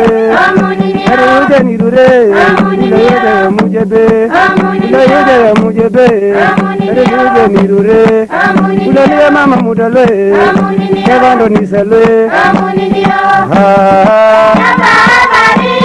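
Background music: a melody that bends up and down over a steady low drone, with frequent drum strikes.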